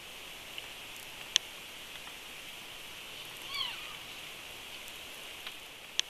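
Steady high-pitched night hiss, with a single sharp click about a second and a half in. A little past halfway comes a brief odd call with a bending pitch, from an unseen animal.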